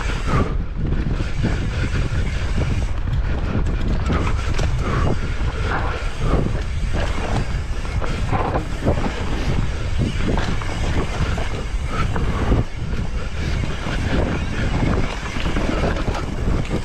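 Mountain bike ridden down a rough trail: steady wind rush over the on-bike microphone, with many quick knocks and rattles from the bike going over bumps.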